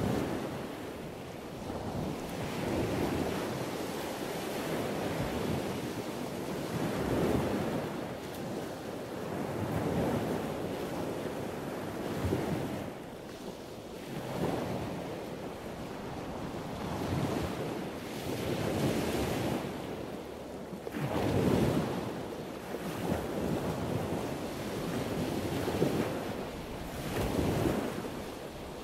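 Wind rushing over a moving camera's microphone during a ride: a noise with no pitch that swells and fades every few seconds.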